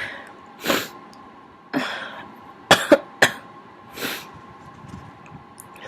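A person with a cold making short sniffs, small coughs and throat-clearing noises, about seven in the first four seconds, three of them sharp and close together around the middle.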